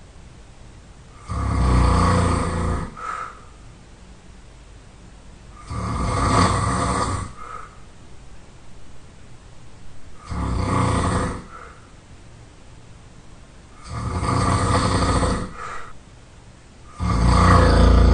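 A person snoring loudly: five long snores, about one every four seconds, each followed by a short, quieter puff of breath.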